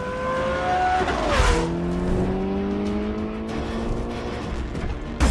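Rally car engine accelerating hard. About a second and a half in, a car rushes past with a whoosh and a drop in pitch, then the engine climbs steadily in pitch as it pulls away.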